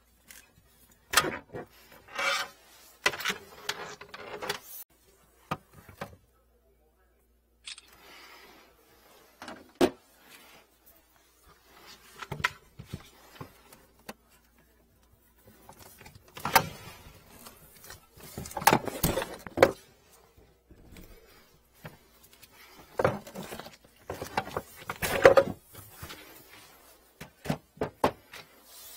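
Irregular handling noises: rubbing, knocks and clatter as gloved hands work plastic drain hoses and tools in a cramped kitchen sink cabinet. The busiest stretches come about halfway through and again a few seconds later.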